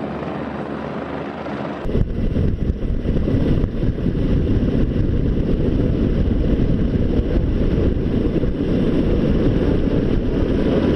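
Firefighting helicopter's rotor and turbine noise. About two seconds in it cuts to a louder, rough low rumble with wind buffeting the microphone.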